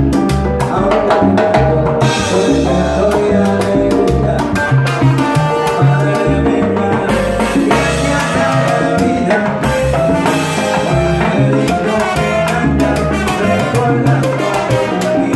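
Live salsa band playing at full volume, with hand percussion and drums driving the rhythm over a moving bass line.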